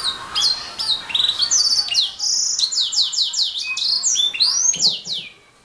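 Domestic canary singing a fast, loud song of repeated phrases: rapid trills and quick downward-sweeping notes, breaking off about five seconds in.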